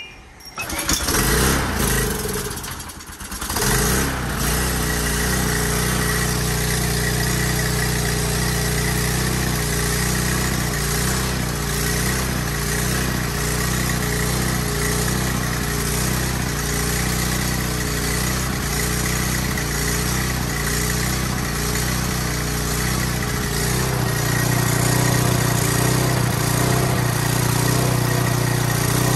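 Briggs & Stratton engine on a Troy-Bilt pressure washer starting from the recoil pull, catching within a few seconds and then running steadily. This is its first start after five years idle, once a stuck carburetor fuel needle had been freed. Near the end its running note settles into a stronger, deeper hum.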